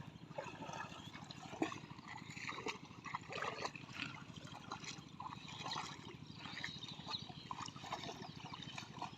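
Water trickling and splashing in small irregular spatters in shallow river water.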